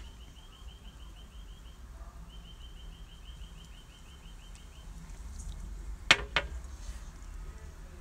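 A small bird calling in fast runs of repeated high chirps, one run stopping about two seconds in and a second following briefly after it. About six seconds in come two sharp knocks in quick succession, the loudest sounds here, over a low steady rumble.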